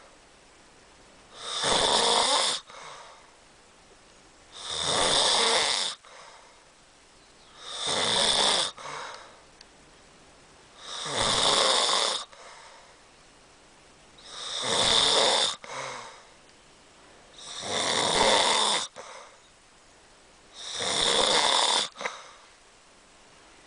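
A sleeper snoring loudly in a steady rhythm: seven snores of about a second each, one every three seconds or so, with quiet between them.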